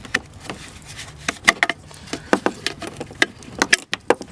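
Irregular sharp clicks and taps of plastic parts being handled, as turn-signal bulb sockets are twisted out of a car's rear light housing.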